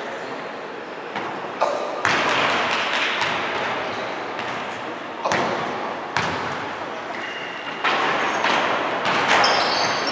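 Spectators in a large gym hall shouting and cheering during a basketball game, the crowd noise rising in sudden bursts about 2, 5, 6 and 8 seconds in, with the odd thud of the ball and squeaks of sneakers on the hardwood floor near the end.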